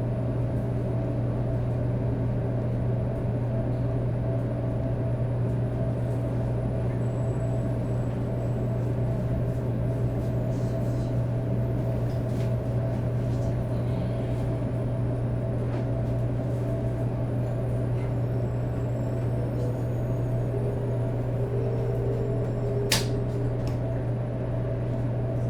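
Steady low hum inside a Shinkansen 500 series car, with no traction-motor whine rising or falling: the train standing at the end of its run. A single sharp click comes near the end.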